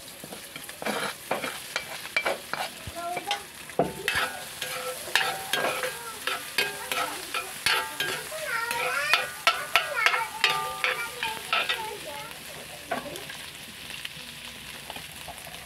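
Beaten egg sizzling as it fries in hot oil with onions in a steel wok, while a metal ladle scrapes and knocks against the pan. The stirring stops a few seconds before the end, leaving the steady sizzle.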